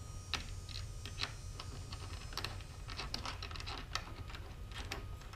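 Irregular light clicks and taps of a screw and plastic parts being handled and fitted into a plastic micro anchor base and adapter mount.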